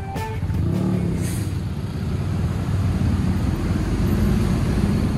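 Road traffic close by at a level crossing: a steady rumble of engines and tyres, with a large vehicle passing right alongside.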